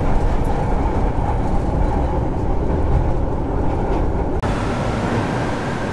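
Steady rumble and running noise inside a moving commuter train carriage. About four seconds in, the sound changes abruptly, with less low rumble and more hiss.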